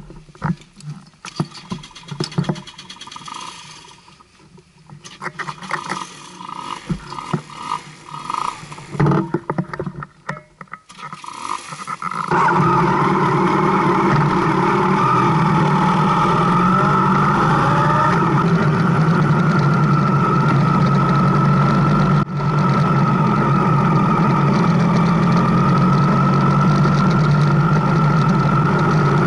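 Scattered clicks and knocks, then about twelve seconds in a motorcycle engine starts up abruptly and keeps running steadily with an even drone.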